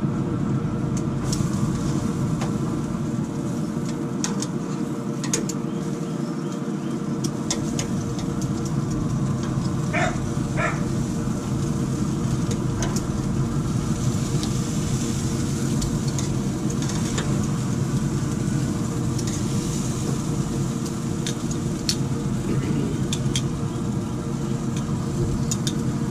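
Metal tongs clicking against the pellet grill's cast grates as chicken halves are turned, over a steady mechanical hum. Two short calls sound about ten seconds in.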